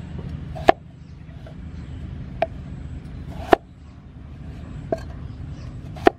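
Cleaver chopping through raw potato and knocking on a wooden chopping board: five sharp knocks at uneven intervals, over a steady low background rumble.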